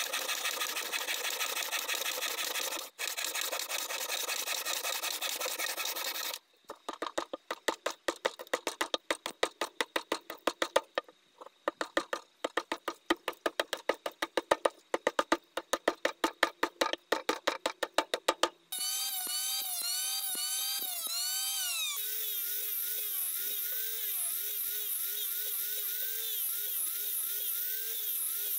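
A band saw cutting a wooden block for about six seconds, then a hand rasp worked over the wood in quick, even strokes, about three a second, for some twelve seconds. Near the end an electric rotary sander whines; its pitch drops about three seconds after it starts and then wavers as it is worked over the wood.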